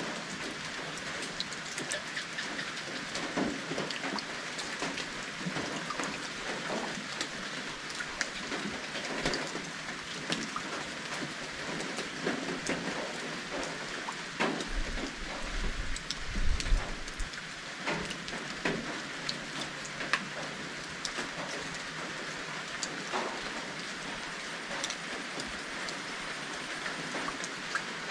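Steady rain falling, with many sharp individual drops landing close by. A brief low rumble comes about halfway through.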